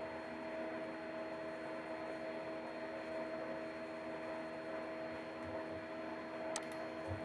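Steady electrical hum with a faint hiss, the background noise of a desk microphone, with one short keyboard click near the end.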